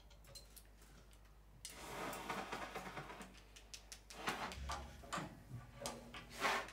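Quiet scattered knocks, clicks and scrapes. A rush of scraping noise comes about two seconds in, and a sharper, louder knock comes just before the end.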